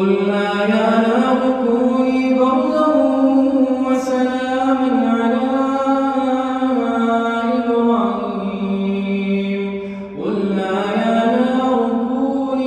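A man's voice chanting Quran recitation in Arabic, amplified through a microphone: long drawn-out melodic notes in one slow phrase that steps down in pitch about eight seconds in, a short breath about ten seconds in, then a new phrase rising again.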